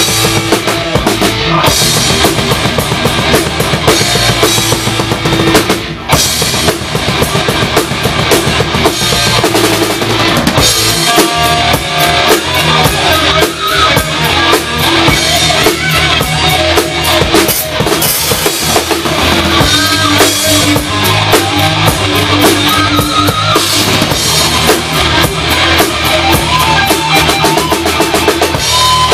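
Heavy metal band playing live, heard from right behind the drum kit: kick drum, snare and cymbals are loudest, with the rest of the band underneath.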